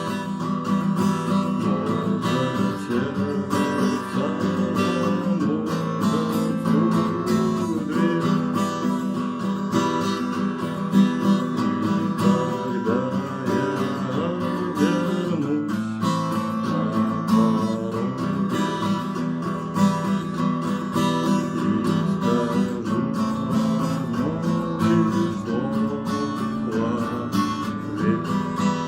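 Acoustic guitar strumming chords steadily, with a melody line over it that slides and bends in pitch.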